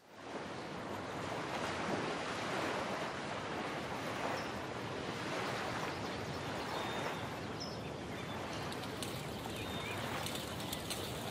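Steady outdoor ambience of wind and water, a soft even hiss, with a few faint short bird calls, more of them in the later part.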